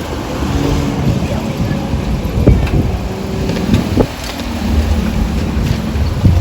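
Road traffic: motor vehicles passing over the crossing, with engine rumble, tyre noise and a few brief knocks.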